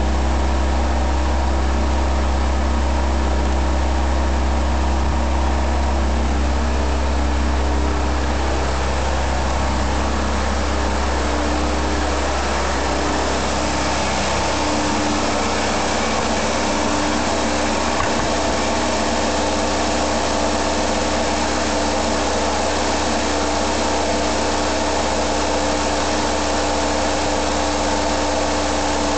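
Fuel-injected 2.5-litre Iron Duke (Pontiac 151) four-cylinder of a 1982 Chevrolet Citation idling steadily. At first it is heard at the tailpipe with a heavy low exhaust note. From about halfway through it is heard from the engine bay, with less low end and more of the brighter mechanical sound.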